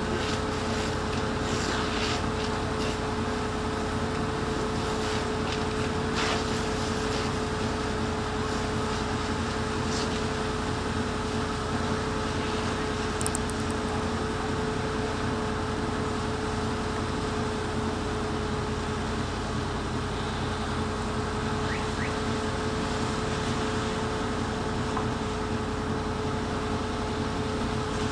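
Fire engine running steadily to drive its water pump, heard from a distance: an even mechanical drone with a constant hum and low rumble.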